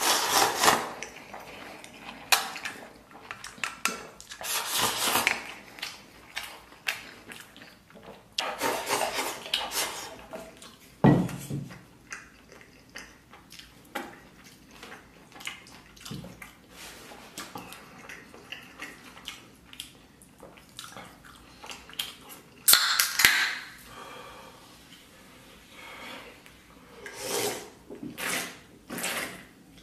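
Eating sounds: wooden chopsticks clinking and scraping a stainless steel bowl as rice is shovelled into the mouth, with chewing and slurping between short, irregular bursts. There is a dull knock about eleven seconds in, and sips from a can near the end.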